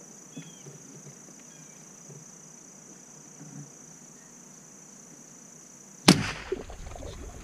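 A single .22 rifle shot about six seconds in: one sharp, loud crack followed by a short fading echo. Before it, only a steady high insect drone.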